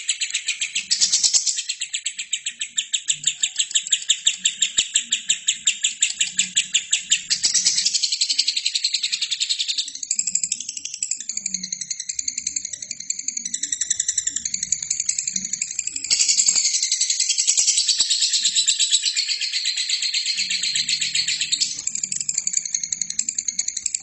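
Albino lovebird chattering in a long, unbroken string of rapid, shrill notes; the pattern of the chatter changes about ten seconds in and again past the middle.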